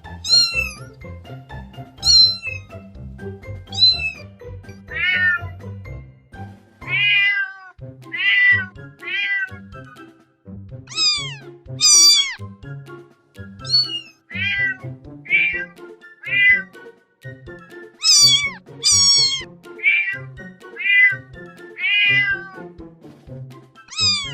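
Domestic cats meowing in a long string of short meows, about one a second, each falling in pitch, some high and thin and others lower. Background music runs underneath.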